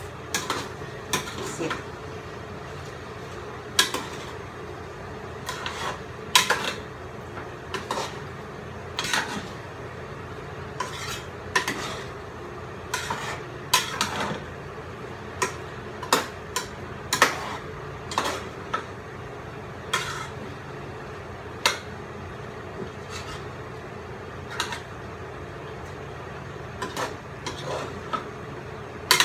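A utensil clinking and scraping against a metal cooking pot while vegetables are stirred, in irregular clanks, some in quick runs, over a steady background hum.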